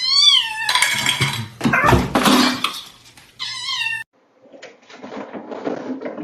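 A cat meowing: one long meow that rises and falls at the start, a stretch of loud noisy sound, then a shorter meow about three and a half seconds in. The sound then cuts off abruptly and quieter, noisy sounds follow.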